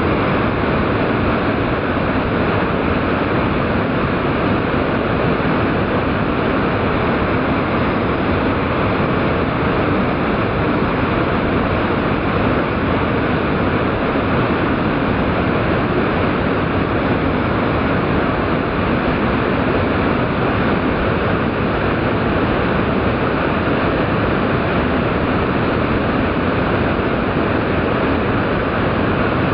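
Wide curtain waterfall pouring into its plunge pool: a steady, even rush of falling water, played back slowed to quarter speed.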